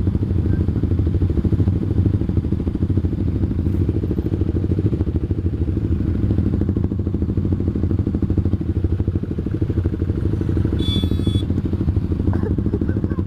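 Motorcycle engine running steadily while riding, a dense low rumble. About eleven seconds in comes a brief high-pitched squeal of about half a second.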